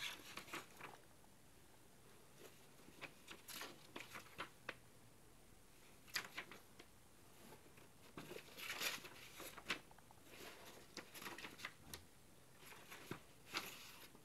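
Faint rustling and flicking of paper as the pages of a printed instruction booklet are turned by gloved hands, in short scattered bursts.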